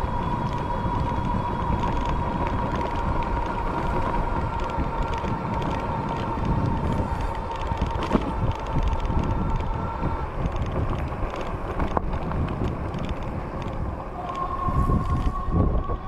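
Fat-tire e-bike riding along, with the motor's whine holding a steady pitch over wind rumble on the microphone. The whine stops about ten seconds in and comes back slightly higher and rising near the end.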